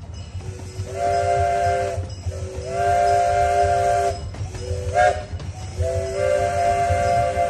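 Miniature steam locomotive's whistle sounding a chord of several notes in repeated blasts: two long blasts, a short one about five seconds in, then another long blast that carries on. A steady low rumble of the moving train runs underneath.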